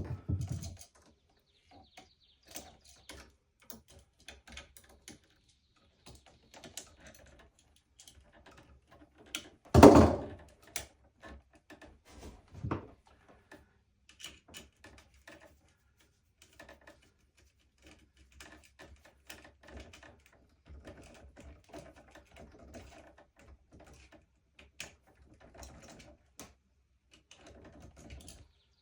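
Irregular light clicks and taps, with a loud knock about ten seconds in and a smaller one a few seconds later.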